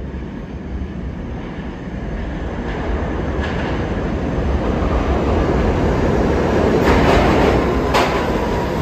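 R68 subway train approaching and pulling into the station, its rumble growing steadily louder as it nears, with a few sharp clacks from the wheels on the track.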